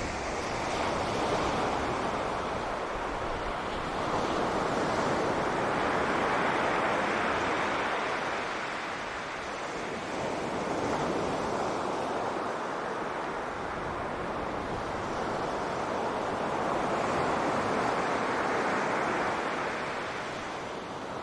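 Sea surf breaking on a beach: a steady wash of waves that swells and eases every five or six seconds as each wave comes in.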